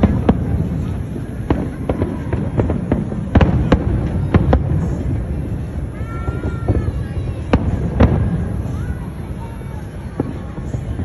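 Aerial fireworks bursting: many sharp bangs and crackles, some in quick clusters, over a continuous low rumble.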